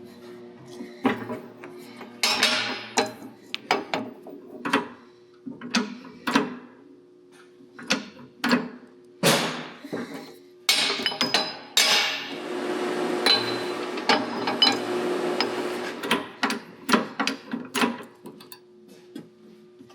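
Hammer blows and knocks on metal parts, irregular and spread out, during shop work on the seal and nut of a tractor's PTO divider box. A steady hiss runs for a few seconds in the middle, with a faint steady hum underneath.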